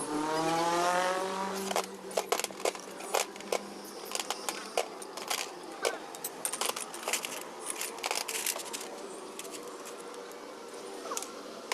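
A drawn-out call with a slightly rising pitch during the first second and a half. It is followed by a run of sharp, irregular metallic clicks and clinks, several a second, that die away about ten seconds in.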